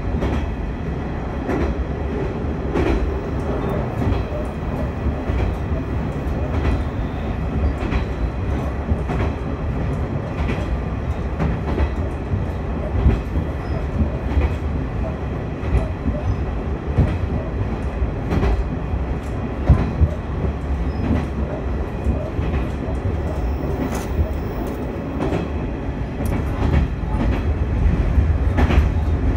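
Noto Railway diesel railcar running along the track, heard from inside the rear of the car: a steady low rumble of wheels on rails with irregular clicks and knocks from the track, a little louder near the end.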